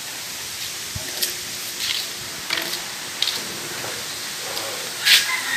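Steady background hiss with a handful of light clicks and taps scattered through, the sharpest one near the end.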